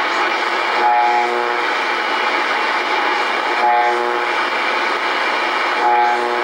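Icom IC-R8500 shortwave receiver in AM mode being tuned across the 25-metre band: a steady hiss of static and band noise, broken three times by a brief buzzing tone of about half a second as the dial passes signals.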